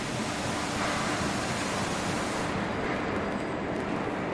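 Steady rolling noise of a rail bike's wheels running along steel rails, mixed with wind on the microphone; a brighter hiss for the first two and a half seconds, then easing.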